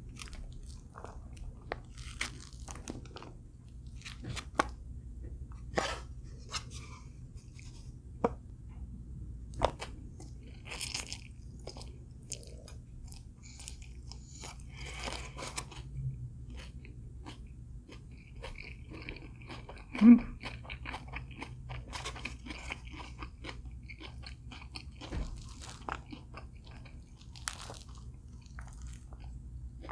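Close-miked eating: a person chewing and crunching food, with irregular small crackles and clicks and one louder sharp sound about twenty seconds in.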